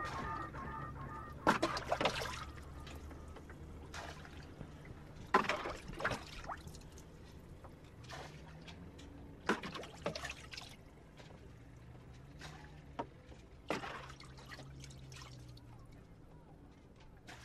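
Wet scraping and smearing of oil paint being worked on canvas, in four short strokes spaced about four seconds apart, over a faint low hum.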